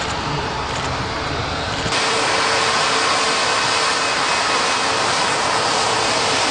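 Steady rushing noise of an Airbus A220 airliner's jet engines. About two seconds in it jumps suddenly louder and brighter.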